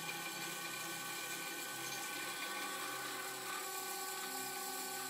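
JIB DP15VL floor drill press running, its electric motor and V-belt variator pulleys giving a steady whine while the variator lever changes the spindle speed.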